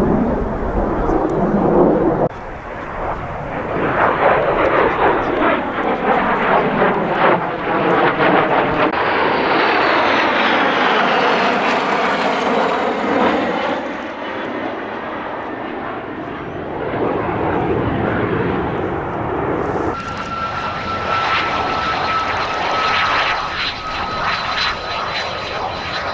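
Jet aircraft flying past overhead: a loud, steady rush of jet engine noise whose tone sweeps as it passes. About twenty seconds in, it cuts to a jet engine close by on the ground, running with a steady high whistle.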